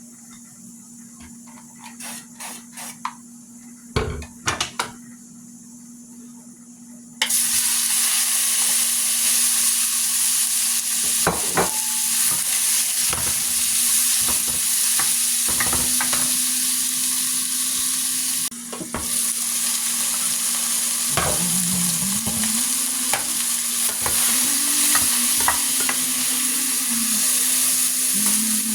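Food frying in a hot pan: after a few light clicks and knocks of handling, a loud, steady sizzle starts suddenly about seven seconds in and keeps going, broken by occasional clicks of utensils.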